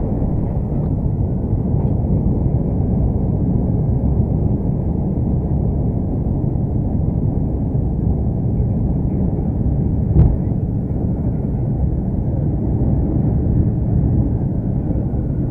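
Airbus A330 jet engines and landing roll heard from inside the cabin as a steady, loud low rumble. About ten seconds in comes one short sharp bang: a compressor stall (surge) of the engine in reverse thrust.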